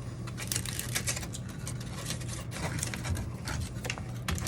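Foam scenery being cut and scraped, giving irregular scratchy crackles and rubbing, over a steady low hum.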